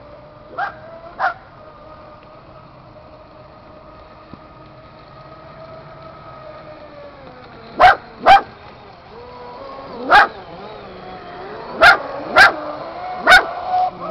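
A dog barking: two barks about a second in, then more barks, often in pairs, from about eight seconds on. Under them runs a steady whine that drifts slightly in pitch: the brushless RC boat's motor running out on the water.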